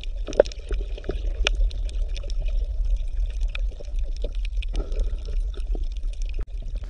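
Underwater water ambience: a steady low rumble with scattered bubbling clicks and pops.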